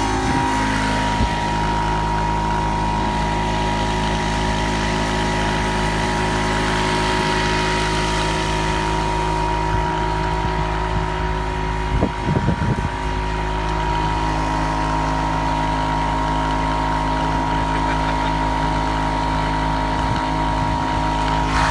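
Stick welding with a 3.2 mm 7016 electrode at 130 A on 425 Hz AC: the arc gives a steady high-pitched hum over the low, steady drone of the machine running. About twelve seconds in the sound wavers unevenly for about a second, then settles again.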